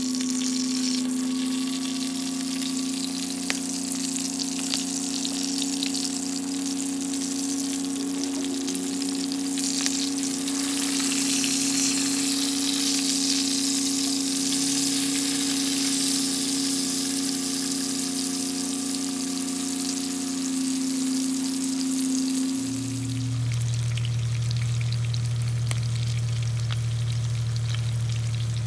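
Split fish frying in hot oil in a nonstick pan: a steady crackling sizzle that swells for a few seconds near the middle. A steady hum runs under it and drops to a lower pitch about four-fifths of the way through.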